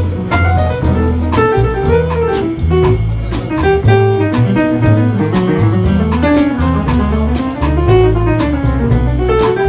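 Jazz music: a melody over a moving bass line, with drum strokes keeping a steady beat.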